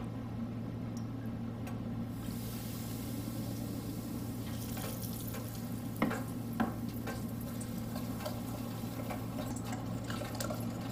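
Hot frying oil ladled from a deep fryer onto a dry spice rub in a stainless steel bowl, hissing from about two seconds in. About six seconds in the ladle knocks down on the wooden board, then a wire whisk clinks and scrapes in the metal bowl near the end, over a steady low hum.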